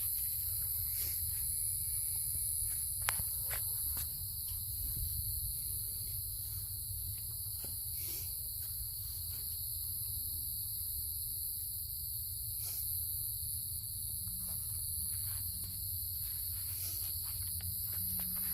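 Steady chorus of night insects such as crickets, an unbroken high trill at two pitches. A few faint clicks and taps sound now and then over it.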